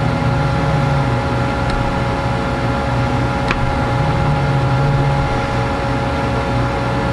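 Steady machine hum: a low drone with a few constant higher tones, with two faint ticks in the first half.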